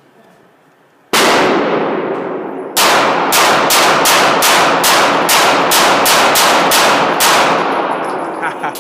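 Gunshots at a shooting range: a single shot about a second in, then after a short pause a fast string of about a dozen shots, each ringing out in the room's echo.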